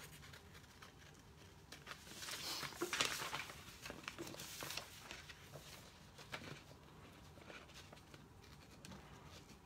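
Faint rustling and scraping of a paper template on poster board being handled and cut with scissors on a tabletop, busiest a couple of seconds in, then a few small taps and rustles.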